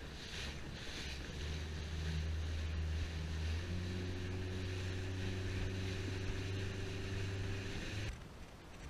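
Small motorboat under way: its engine runs steadily with a low hum that steps up in pitch about a second in and again a few seconds later, over the rush of water and wind past the hull. Both stop abruptly about eight seconds in.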